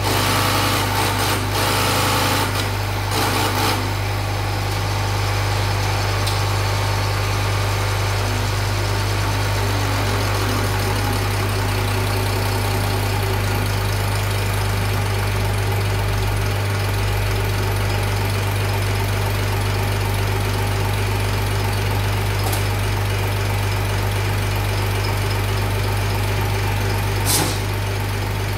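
Diesel injection pump turning on a test bench: a steady mechanical running sound over a strong, constant low hum. A louder rushing noise fills the first few seconds, and there is one sharp click near the end.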